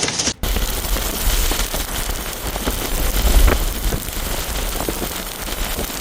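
Storm rain and wind: a dense hiss of rain striking a surface with scattered sharp ticks, over low rumbling wind buffeting on the microphone. It starts abruptly about half a second in.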